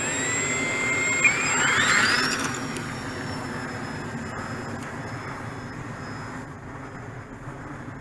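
Radio-controlled foam plane's new motor and propeller throttling up for takeoff: a whine that climbs in pitch over about a second, then holds a steady high tone that fades as the plane flies away. Its owner says this new motor rattles.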